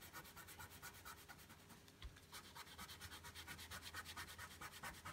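Wax crayon rubbing quickly back and forth on paper, colouring in an area with short side-to-side strokes; faint.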